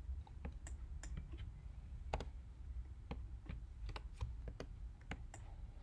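Irregular light clicks from a computer keyboard and pointer as a Photoshop transform is worked, roughly three a second, over a low steady hum.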